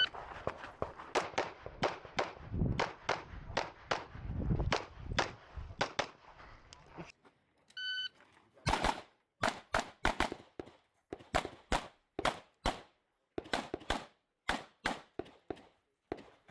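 Competition shooting with a Glock 17 Gen 5 9mm pistol: a string of rapid shots, then an electronic shot-timer start beep about eight seconds in. After the beep comes a fast run of shots, mostly in quick pairs (double taps) with short pauses between targets.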